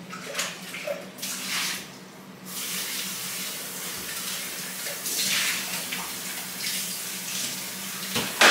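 Water running from a kitchen tap into a sink, splashing in uneven spurts that stop and start, with a sharp knock near the end.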